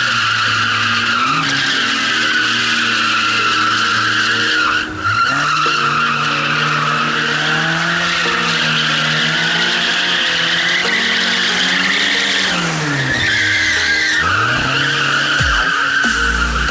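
Lada 'classic' drift car sliding in circles: its tyres squeal without a break while the engine holds high revs. The revs dip briefly about five seconds in, then fall and climb back again around thirteen seconds.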